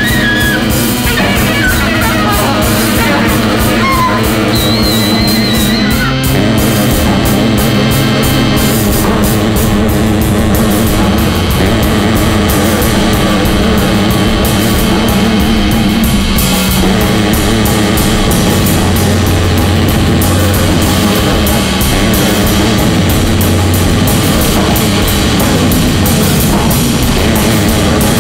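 Loud, dense noise-jazz drone music: drums played busily and continuously under layered sustained droning tones, with a wavering high squeal over the top for roughly the first six seconds.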